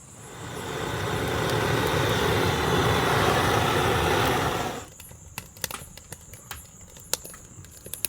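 A loud rushing noise swells over about a second, holds, and cuts off abruptly about five seconds in. Then come scattered sharp crackles and pops of burning firewood.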